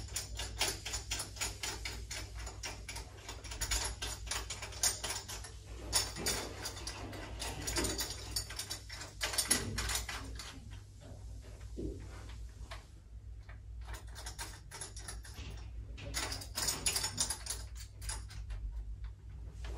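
Ratchet wrench clicking rapidly as nuts are tightened back onto the clamp bolts of a reverse osmosis membrane housing. The clicking comes in runs, stopping for a few seconds past the middle, then resuming briefly.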